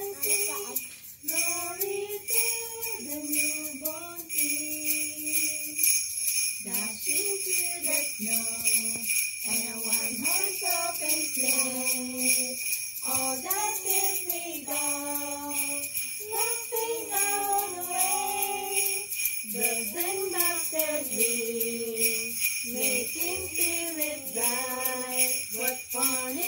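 Christmas carolers singing, accompanied by a handheld jingle stick shaken in a steady beat.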